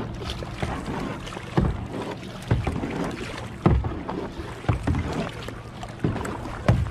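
Double-bladed kayak paddle stroking through lake water, alternating sides about once a second, each stroke a short splash and knock over a constant wash of water.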